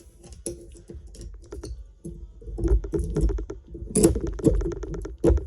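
Metallic clicking and scraping of snap ring pliers working a rusted snap ring in a Honda Civic front spindle, the ring loose on one side only. The clicks are sparse at first and come thick and fast from about halfway in.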